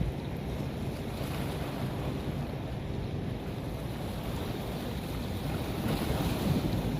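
Moving water with wind buffeting the microphone: a steady rush with a low rumble that swells slightly near the end.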